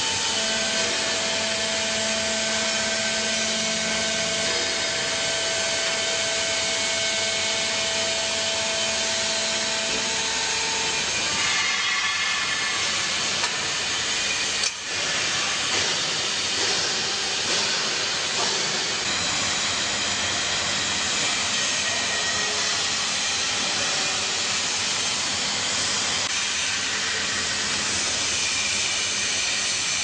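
Vertical hydraulic baler running with a steady hiss, a held whining tone over it for about the first ten seconds that then stops, and a single short click around the middle.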